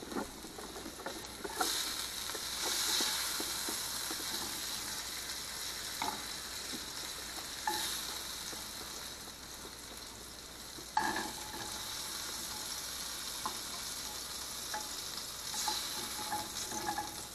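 Crappie frying in hot oil in a pan, a steady sizzle, with a few short clicks and knocks, the sharpest about eleven seconds in.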